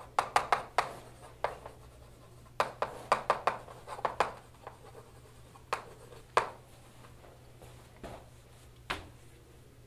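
Chalk writing on a blackboard: quick clusters of sharp taps and scrapes as letters are formed, busiest over the first four seconds, then a few spaced single taps.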